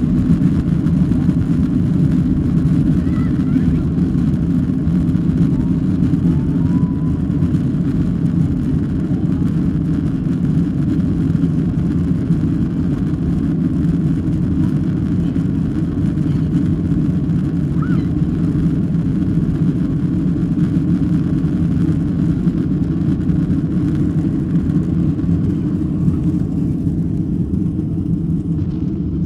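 Cabin noise of a Boeing 737 at takeoff thrust: a loud, steady, deep jet roar heard from inside the cabin through the takeoff run and initial climb, its upper hiss easing slightly near the end.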